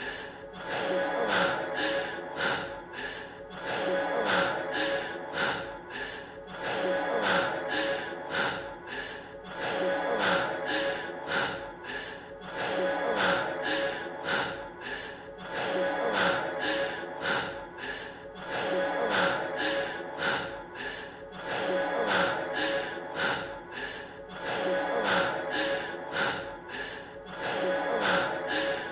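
A man's heavy, rapid panting, about three breaths a second, from the end of a rap track. A short stretch is looped, so the same few seconds of breathing repeat over and over above a held musical tone.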